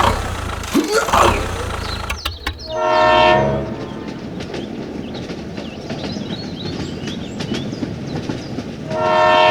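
Two loud horn-like toots, each under a second long, one about three seconds in and one near the end, over a steady rumbling background.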